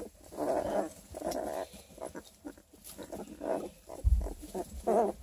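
Newborn Redtick x Black & Tan Coonhound puppies crying: a run of short, wavering, squealy cries. There is a low thump about four seconds in.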